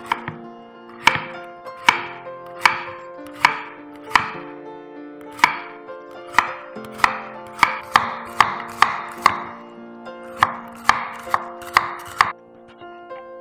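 Chef's knife slicing a halved bitter melon into thin crescents on a wooden cutting board: about twenty crisp knocks of the blade reaching the board, spaced about a second apart at first and quickening to two or three a second, stopping shortly before the end.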